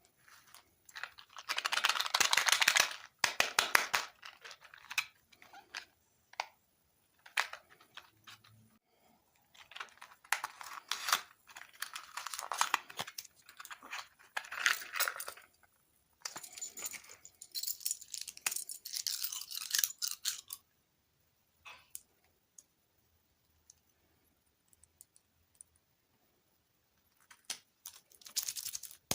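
Close-miked crunching and crinkling from eating sweets and handling their packaging, in irregular bursts with quiet gaps, and a long lull in the last third.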